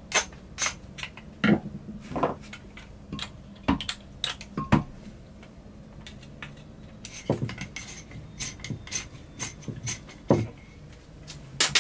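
Irregular clicks and knocks of a screwdriver and plastic and metal parts on an electric marine toilet's macerator pump motor as the pump is worked back together.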